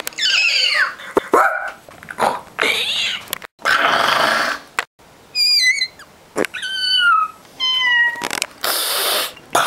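A teenage boy's voice doing animal impressions in quick succession: short gliding calls, loud harsh yells, then high warbling whistled chirps and falling calls a little past the halfway point.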